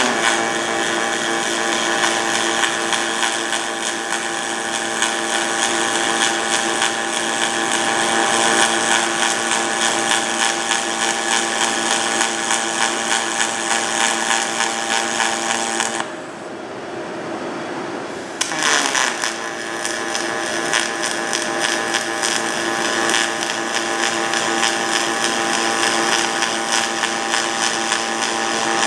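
Pulse-on-pulse aluminum MIG welding arc, 4043 wire on 6061 aluminum, giving a steady buzzing hum over a crackling hiss. About 16 seconds in the arc stops, and it strikes again some two seconds later.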